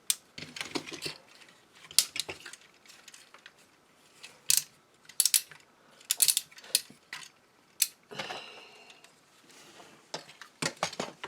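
Irregular clicks and ratcheting of a plastic Transformers action figure's joints as it is handled and its wings are positioned, with a brief scraping rustle about eight seconds in.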